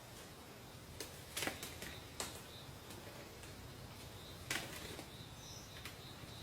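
A few sharp, irregular snaps or knocks, the loudest about one and a half seconds in and again near the middle, over a faint steady high-pitched tone.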